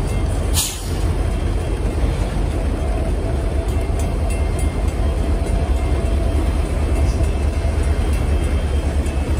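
Freight train cars rolling across a steel railroad bridge, a steady deep rumble of wheels on rail, with one brief sharp high sound about half a second in.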